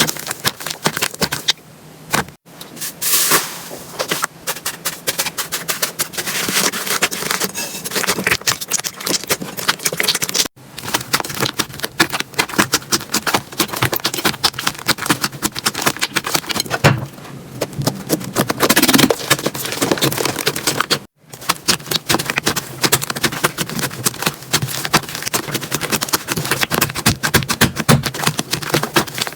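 Slime being squeezed, poked and stretched by hand, with rapid crackling clicks and pops. The sound breaks off briefly three times, at the cuts between clips.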